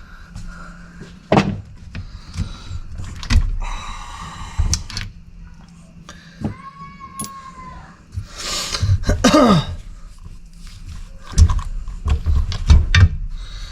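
Metal parts of a tractor hydraulic valve and hand tools knocking and clinking as the valve is pulled apart, in irregular sharp knocks with a cluster of them near the end.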